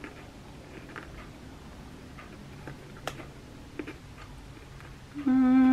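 Soft irregular clicks and crunches of chewing a yogurt-covered pretzel with the mouth closed, one sharper click midway. Near the end, a long hummed "mmm" while tasting.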